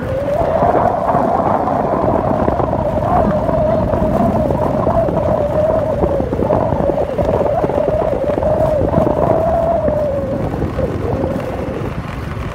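Small motorbike riding along a dirt road: a steady rumble of engine, tyres and wind, with a wavering high-pitched whine over it that fades out about ten seconds in.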